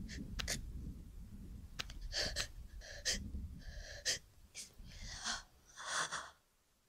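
A person's short, breathy gasps and wheezing breaths, about half a dozen in a row, with a few sharp clicks before them.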